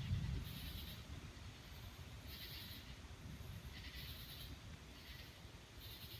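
Night insects calling in short pulsed chirps, repeating about every second in two pitches, one high and one very high, over a steady low rumble. A deeper rumble at the start dies away within the first second.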